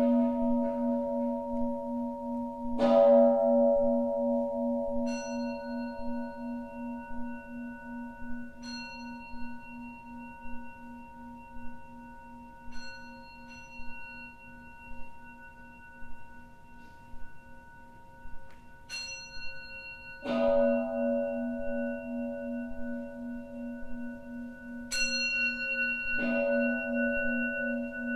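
Bowl bells ringing: a large, low-pitched bell struck three times, its long hum wavering in a slow beat as it fades, and a smaller, higher bell struck several times in between.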